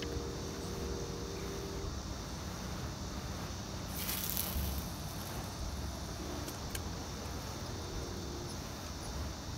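Fishing line hissing off a spinning reel as a cast goes out, a brief burst about four seconds in, with a faint tick a few seconds later. A steady low rumble runs underneath.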